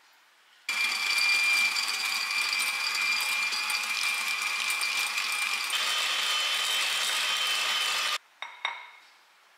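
A small electric motor running with a steady high whine over a noisy whir; the whine steps up in pitch about five seconds in. It cuts off suddenly, followed by two short clicks.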